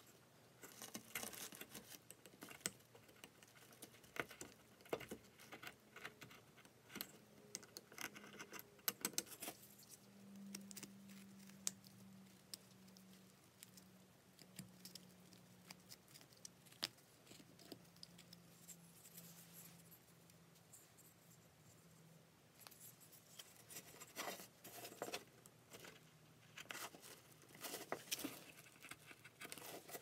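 Hobby knife blade cutting and shaving a small wooden bird carving in quick short strokes: dry scraping and clicking of the blade in the wood. The cutting comes in two spells, with a quieter pause in the middle.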